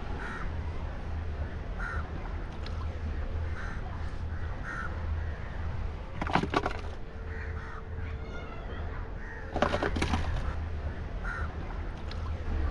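Crows cawing repeatedly, two calls about six and ten seconds in louder than the rest, over a low steady rumble.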